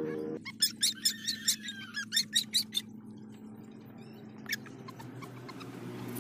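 A very young puppy squeaking: a quick run of about ten short, high squeaks in the first few seconds, then one more about halfway through.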